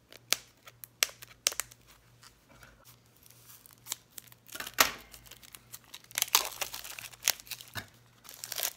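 Clear plastic wrapping on a pack of paper ephemera being cut with scissors and torn open. It crinkles in irregular bursts with sharp snips and clicks.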